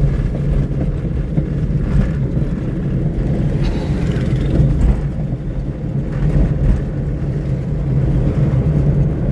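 A Toyota car driving along a rough, unpaved road, heard from inside the cabin: a steady low rumble of engine and tyre noise.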